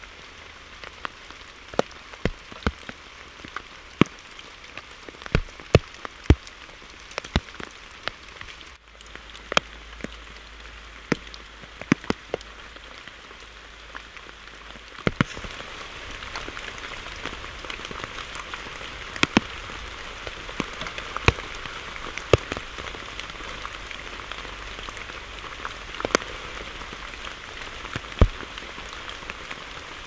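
Rain falling steadily, with many heavy drops landing close by as sharp, irregular taps. The rain grows heavier about halfway through.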